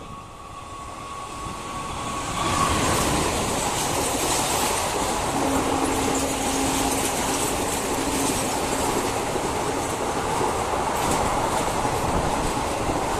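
ICF passenger coaches of an express train rushing past at speed without stopping, the wheels clattering over the rail joints. The noise swells over the first couple of seconds as the coaches draw level, then holds steady, with a steady hum for a few seconds in the middle.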